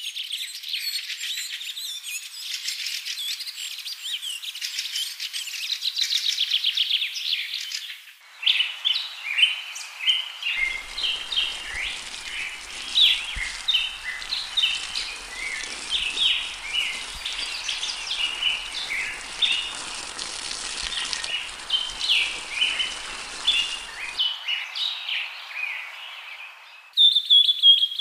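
A bird chorus: many small birds chirping and trilling densely over one another. The recording changes abruptly about eight seconds in to another stretch of busy chirping.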